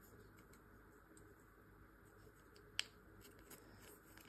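Near silence with faint ticks of plastic being handled, and one sharp click a little under three seconds in, from the pink plastic plug of a brush-cleaning water container being turned and fitted by hand.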